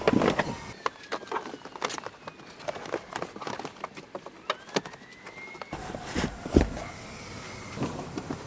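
Molded rubber floor liner being pushed and worked into place on a pickup's rear cab floor: scattered scrapes and knocks, with one loud thump about six and a half seconds in.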